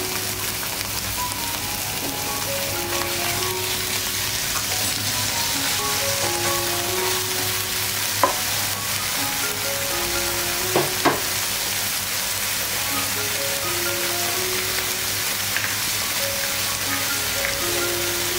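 Canned tuna and diced bell peppers sizzling in a hot nonstick frying pan while being stirred and broken up. Three sharp knocks of the utensil on the pan come about 8 and 11 seconds in.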